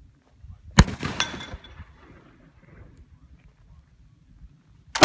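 A sharp crack with a brief metallic ring about a second in, followed by a second smaller crack. Right at the end, a .54 calibre flintlock rifle fires with a loud report.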